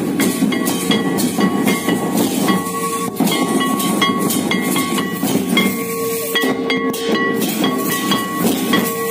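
Santali dance drumming: quick, dense drum strokes with a held high tone above them that breaks off and comes back several times.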